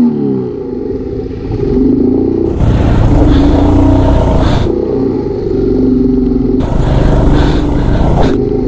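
Motorcycle engine running at low speed in a shallow rocky stream crossing, its pitch shifting a little with the throttle. Two spells of louder rushing noise come in about three seconds and seven seconds in.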